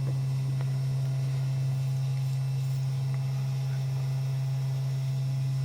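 Small desktop CNC engraver running steadily while it engraves with a V-groove bit, giving a constant low hum.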